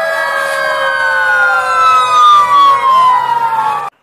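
Fire engine sirens wailing together, their pitches sliding slowly down, with one rising again near the end, then cutting off suddenly.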